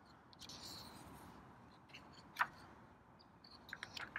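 Faint handling of a paper picture book: a soft rustle early on, one sharp click about halfway through, and a few short high chirps and clicks near the end.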